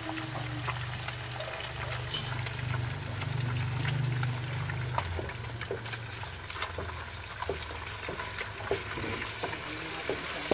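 Reduced coconut milk frying in its own separated oil in an aluminium wok, bubbling and crackling with many small pops as the coconut curds turn into latik. A wooden spatula starts stirring it near the end. A low steady hum runs underneath, strongest in the first half.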